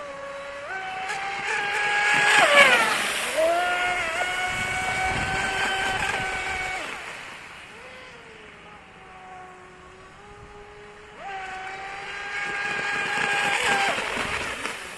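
Radio-controlled speed boat's motor running at full speed, a high whine that grows louder and drops in pitch as the boat goes by about three seconds in. It fades into the distance, then comes back loud at about eleven seconds and drops in pitch again on a second pass near the end.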